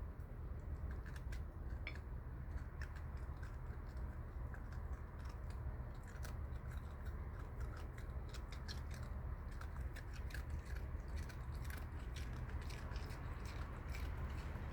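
Opossum chewing ginger snap cookies: a run of crisp, irregular crunches and snaps from hard biscuit breaking between its teeth, over a steady low hum.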